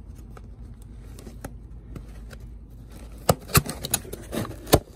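Cardboard shipping box being opened by hand: faint scrapes and rustles at first, then a cluster of sharp cardboard snaps and scrapes in the last two seconds, the loudest just before the end.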